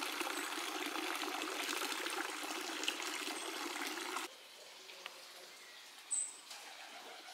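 Steady trickling of water from a stone garden fountain. It cuts off about four seconds in, leaving a low background with one short high chirp near the end.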